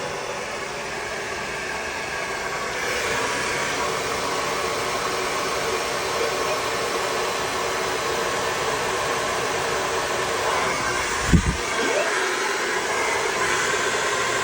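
Handheld blow dryer running with a steady whir and hum, a little louder from about three seconds in. A single short thump about eleven seconds in.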